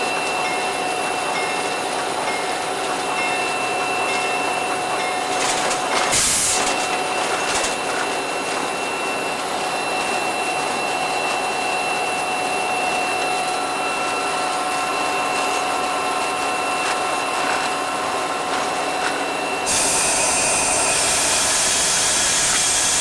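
Steady cab noise of a CN SD40-2 diesel locomotive under way, with a few faint steady whines and a brief loud bang about six seconds in. From about twenty seconds in, a loud steady air hiss comes from the brake valve as the brake is applied.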